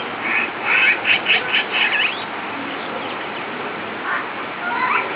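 Bird calls: a quick run of about six short calls in the first two seconds, then a couple more near the end.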